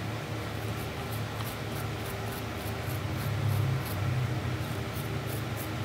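Steady low hum, with faint, irregular scratching of a small wire brush scrubbing built-up grime from a gas stove valve.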